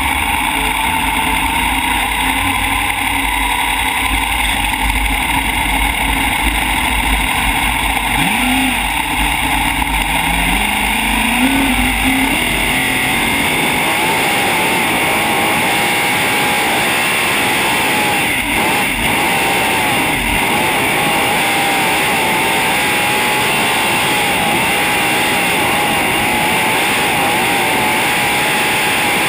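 Onboard sound of a sprintcar's V8 engine running and overloading the in-car microphone, mixed with wind and rushing noise. The engine note rises a few times in the first dozen seconds, then settles into a loud, steady drone as the car gets up to speed on the track.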